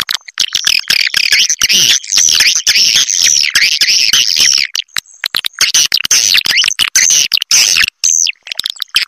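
Swiftlet roosting-call track: dense, rapid, high chirping and twittering of swiftlets, played loud and chopped by short silent gaps, the kind of call played to lure swiftlets into a nesting house to roost.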